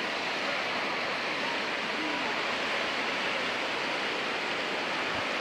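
Muddy floodwater rushing across a paved street, a steady unbroken rushing noise.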